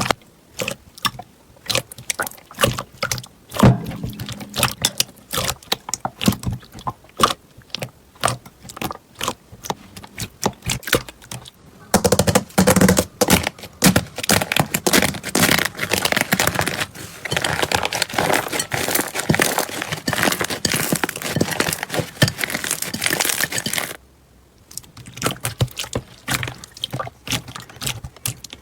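Slime being squeezed and kneaded by hand, giving many sharp clicks and pops. The clicking thickens into a dense, continuous crackle for a long middle stretch, then drops back to sparser, quieter clicks.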